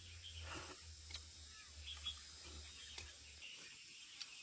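Faint outdoor ambience: a low rumble that stops about three and a half seconds in, a few light clicks and rustles, and faint high chirps in the background.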